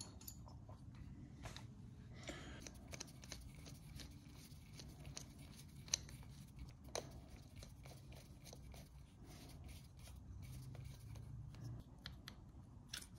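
Faint scattered clicks and taps of small parts and tools being handled as the cleaned carburetor is refitted to a Honda 50 Super Cub, over a low steady hum.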